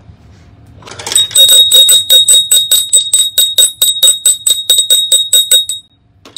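A small high-pitched bell rung rapidly, about five strikes a second for roughly four and a half seconds, then stopping.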